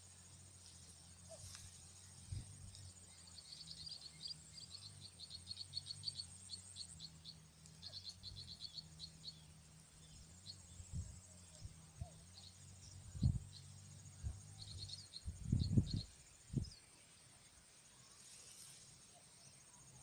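Faint open-field ambience: a steady high insect trill, with runs of quick, high chirps. Under it a low hum, and a few low thumps about two-thirds of the way through.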